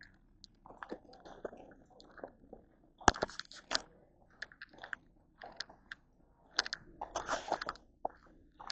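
Footsteps on a hiking trail, coming as uneven steps, loudest about three seconds in and again about seven seconds in.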